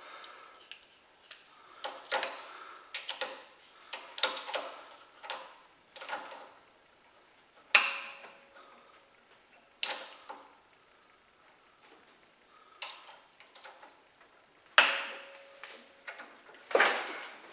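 Scattered metal clicks and clacks of locking pliers being adjusted, clamped onto and worked against a hex bit jammed in a hole-saw arbor's cam lock. Three louder sharp clacks come about eight, ten and fifteen seconds in, two of them ringing briefly.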